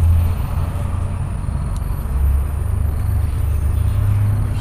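A steady low rumble of a running motor.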